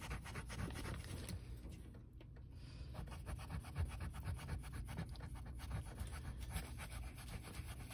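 Small green rubber eraser scrubbing back and forth on notebook paper in quick strokes, erasing erasable gel-pen ink, with a brief let-up about two seconds in.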